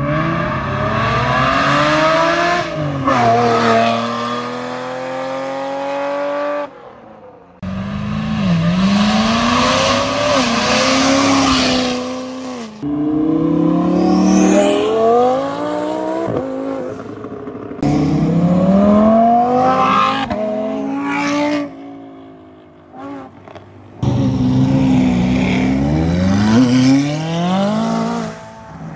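A run of supercars accelerating hard, one after another in short clips. Each engine revs up, dropping in pitch at each gear change, and each clip ends with an abrupt cut. A Ferrari Testarossa's flat-12 opens the run, a Lamborghini Huracán's V10 pulls past in the middle, and a McLaren 570S's twin-turbo V8 is heard near the end.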